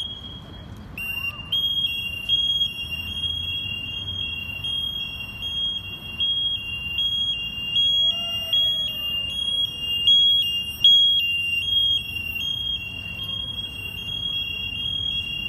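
Electronic siren on a police electric bicycle sounding a high-pitched two-tone warble. A single steady tone for about a second, then rapid alternation between two close high pitches that keeps going.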